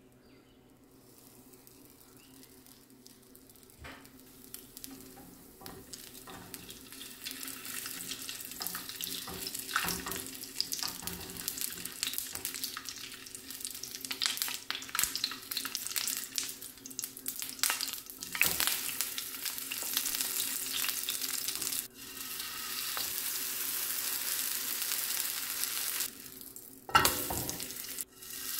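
Egg-soaked bread frying in a skillet of hot oil: the oil sizzles and crackles, faint at first and building over the first several seconds into a steady sizzle with scattered sharp pops. A sudden louder clatter comes near the end.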